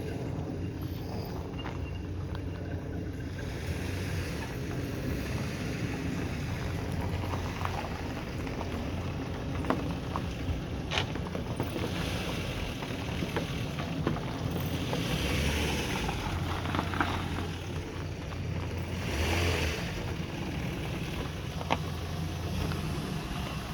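A vehicle's engine running steadily at idle, pulled up to jump-start a lawn mower with a dead battery, with scattered clicks and knocks over it.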